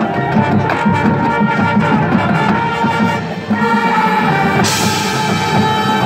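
Marching band playing a field show: brass and woodwinds holding sustained chords over drum hits and front-ensemble percussion. A bright crash comes in about two-thirds of the way through and rings on.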